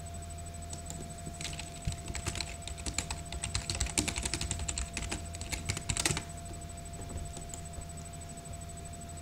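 Typing on a computer keyboard: a quick, uneven run of key clicks that starts about a second and a half in and stops about six seconds in.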